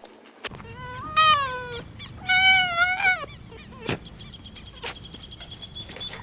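Two drawn-out animal calls, each rising and then falling in pitch, the second a little higher than the first.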